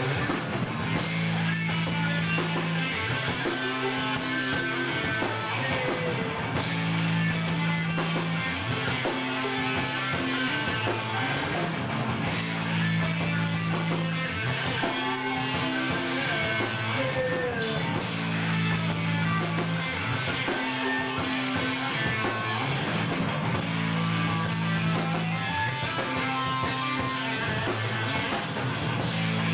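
Live rock band playing loud electric guitar, bass guitar and drum kit, working through a heavy riff that repeats about every four seconds.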